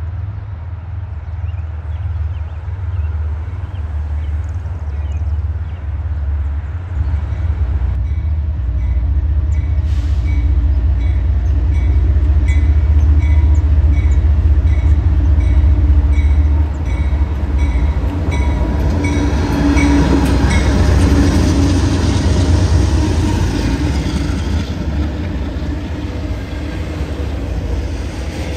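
Two CSX GE ES40DC diesel-electric locomotives hauling a freight train approach and pass close by, their engines' low rumble growing loudest about halfway through. After them the autorack cars roll past, wheels clattering on the rails.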